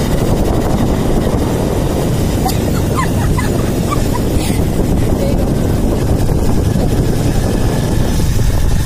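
Steady rumble of a motorcycle under way: the engine running mixed with wind buffeting the phone's microphone.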